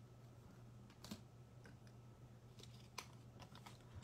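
Near silence: a low steady hum with a few faint, scattered clicks, one about a second in and a small cluster near the end.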